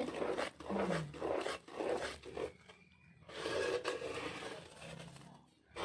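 Rhythmic scraping or rubbing strokes, about two a second, stopping for a moment about two and a half seconds in.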